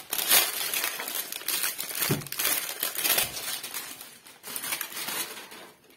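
A very light, thin plastic bag crinkles and rustles as it is pulled off an ATX power supply unit, with dense crackling that stops near the end.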